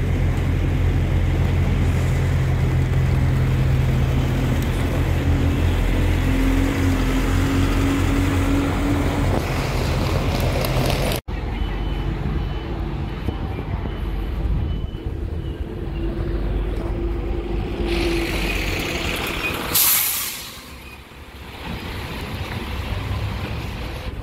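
Diesel bus engines running close by: one steady and loud, then after a cut a quieter one with a faint repeated high beeping. About twenty seconds in comes a short, loud hiss of air brakes.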